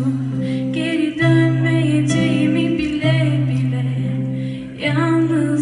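A woman singing with a live band, over held bass notes that change every second or two, with keyboards and acoustic guitar.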